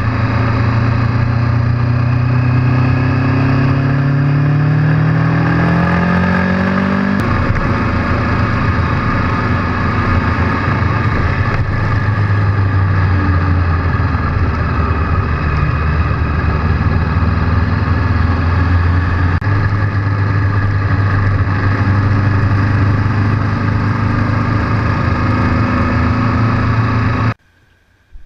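Motorcycle engine accelerating, its pitch rising steadily for about seven seconds, then dropping at a gear change and settling into a steady cruise. The sound cuts off suddenly near the end.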